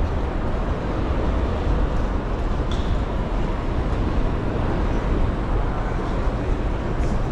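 Steady ambience of a large railway station, a continuous low rumble and noise, with one brief high squeak a little under three seconds in.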